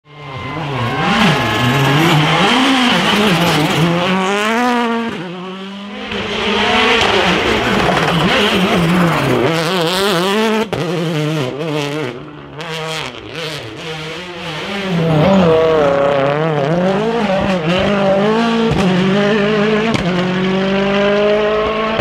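World Rally Cars' turbocharged 1.6-litre four-cylinder engines at full attack on a tarmac stage, revving hard with rapid gear changes so the engine note keeps sweeping up and dropping back, over several passes one after another.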